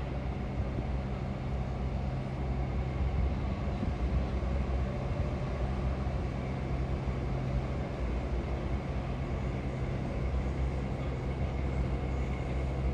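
Steady low engine hum with an even drone and no breaks, over a faint outdoor city background.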